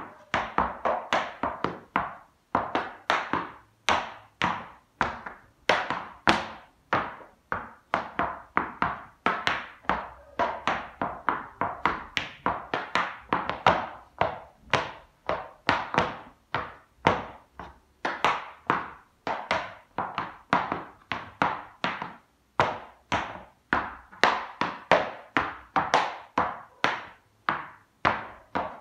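Tap shoes' metal taps striking a hard floor in quick rhythmic runs of sharp clicks, with short breaks between phrases.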